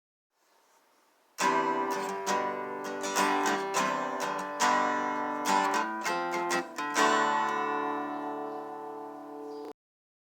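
Intro music: a strummed guitar playing a short passage of chords, the last chord left to ring out before the music cuts off suddenly near the end.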